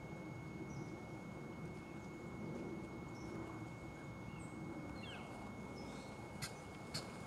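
Wild turkey toms strutting: a faint low steady rumble with two sharp spit-like snaps near the end, the sounds strutting toms make. Faint chirps of small birds come and go higher up.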